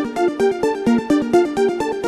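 An iPhone iOS 17 ringtone playing: a fast electronic melody of quick, evenly spaced notes.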